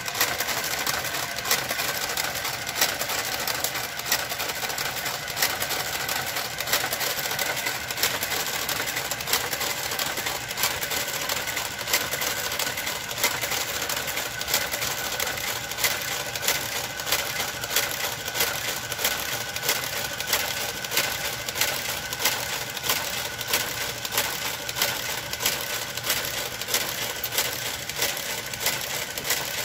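Brother knitting machine's motorised garter carriage running along the needle bed as it knits, a steady mechanical hum with regular clicks about three every two seconds.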